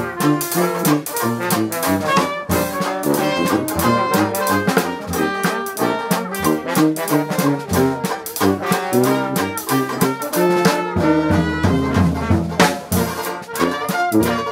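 Live Dixieland jazz band playing: a brass horn leads over a strummed banjo keeping a steady beat.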